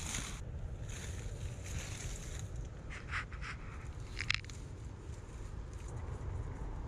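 Wind buffeting the microphone as a steady low rumble, with a few short crackling rustles of the nylon cast net and dry reeds being handled, about three and four seconds in.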